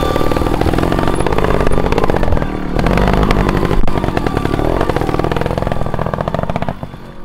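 Trials motorcycle engine at close range, revved up and down in short throttle blips as the bike crawls over dirt and rock. It drops away near the end.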